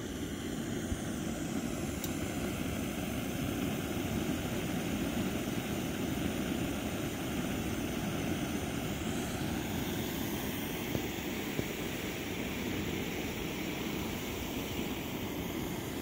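Campfire burning strongly, a steady rushing roar of flames with a few sharp crackles.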